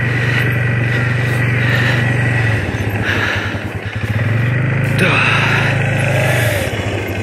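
Four-wheeler (ATV) engine running while it tows a deer carcass over snow. The throttle eases off about two and a half seconds in, then opens again a second and a half later.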